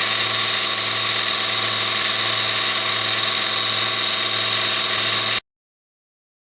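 Miniature belt sander with a 12–24 V DC motor running steadily: a high, even whirring noise over a low hum. It cuts off suddenly about five and a half seconds in.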